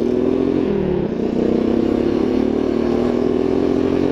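Motorcycle engine running at a steady pace on the move, its note dipping in pitch briefly about a second in, then settling back to an even run.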